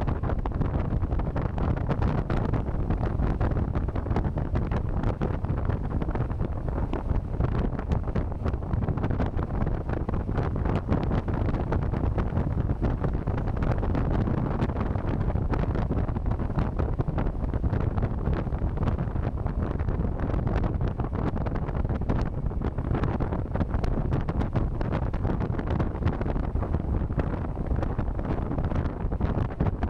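Steady, heavy wind buffeting the microphone, a constant low rumble of rushing air, while riding a Zero SR electric motorcycle; no motor whine stands out above it.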